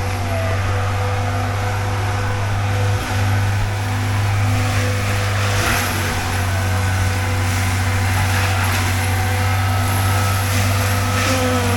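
CAT skid steer with a forestry mulcher attachment running steadily: a constant, loud low engine drone with steady higher tones layered above it, dipping briefly about three seconds in.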